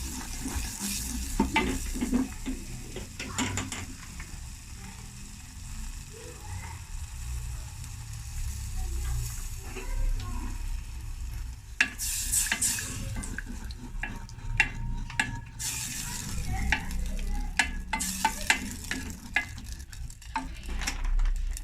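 A utensil stirring a béchamel base of butter, flour and a little milk in a pan on the heat, with irregular scraping and clicking against the pan and a faint sizzle. The strokes come thicker in the second half.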